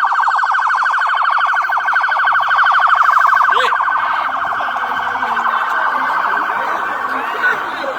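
Police siren in a fast yelp, a rapid warble repeating many times a second, easing off a little in the second half.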